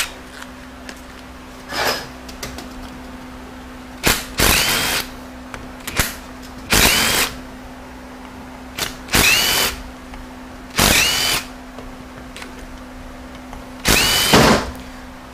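Power drill with a Torx socket spinning out bolts on a transmission pump, five short runs, each with a pitch that rises as the drill spins up.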